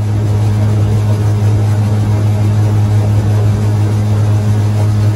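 Boat motor running steadily at one unchanging pitch, with a rushing noise over it, heard from aboard the boat.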